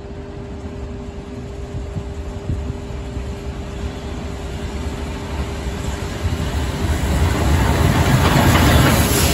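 Beyer-Garratt steam locomotive 6029 approaching and passing with a train of vintage carriages: a low rumble of wheels on rail that grows steadily louder, loudest near the end as the locomotive draws level.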